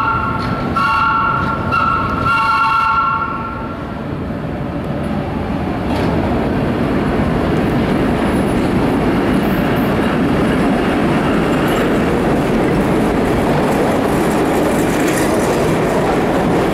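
Vintage R1-9 subway train sounding a two-tone horn twice, the second blast longer, as it approaches through the tunnel. Then the steady rolling noise of the train entering the station and its cars passing on the rails, louder from about five seconds in.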